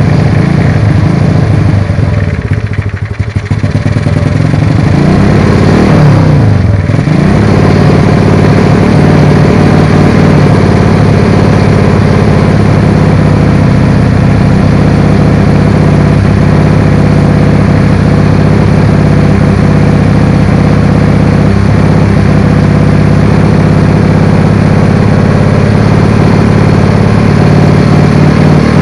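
Single-cylinder four-stroke engine of a Honda C70 Cub, bored to 122cc with a racing cam, idling while its carburetor idle screw is turned with a screwdriver. The revs sag about three seconds in, swing back up, then settle into a steady idle as the carburetor is fine-tuned after a pilot jet change.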